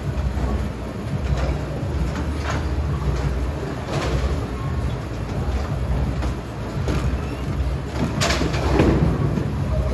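Bowling alley sounds: a steady low rumble of balls rolling down the wooden lanes and pinsetter machinery, broken by sharp clatters of pins being struck, the loudest just after eight seconds in.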